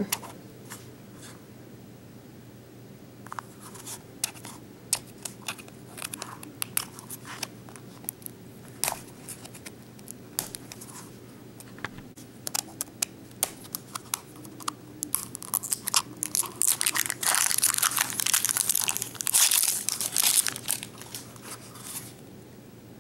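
Plastic wrapping on a Mash'ems toy capsule being handled, torn and peeled off: scattered crackles and clicks at first, then a few seconds of dense crinkling and tearing about two-thirds of the way in.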